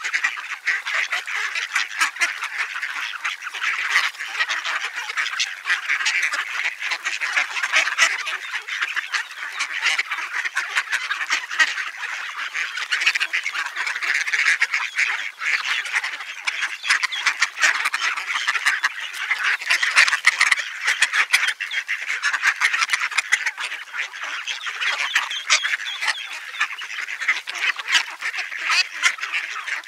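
A large flock of mallard ducks calling all at once: a continuous jumble of overlapping quacks and chatter with no break.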